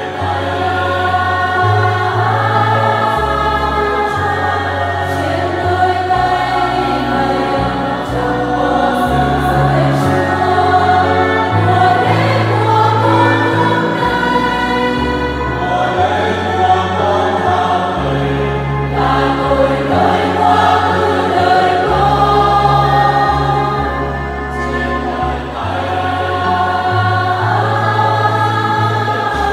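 Women's church choir singing a Vietnamese Catholic hymn in harmony, over an accompaniment with a low bass line that moves in held notes.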